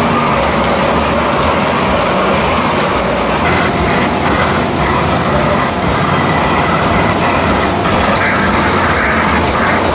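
A carnival kiddie car ride running, a loud steady mechanical rumble and rattle as it turns.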